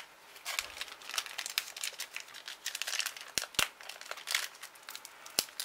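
Foil wrapper of a World of Warcraft TCG booster pack crinkling as it is handled and torn open, with a few sharp crackles.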